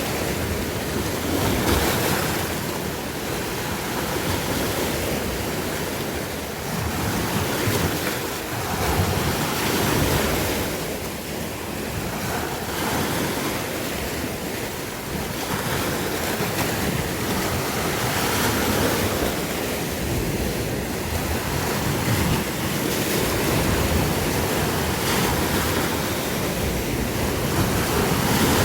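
Sea waves breaking and washing in a continuous surf, swelling and easing every few seconds, with some wind on the microphone.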